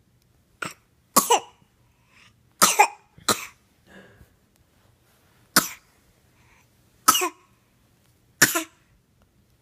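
A young child coughing: about seven short, sharp coughs spread over several seconds, some in quick pairs.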